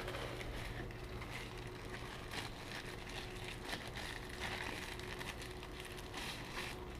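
Faint handling noise of unpacked accessories and packaging: a few soft clicks and rustles over a steady low hum.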